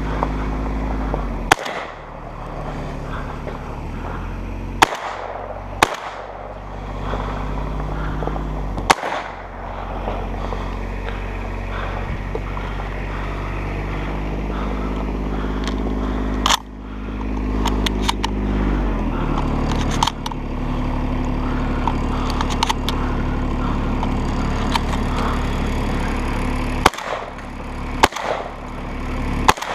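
Remington Versamax shotgun fired about eight times at uneven intervals, the shots the loudest sounds, over the steady running of a UTV engine.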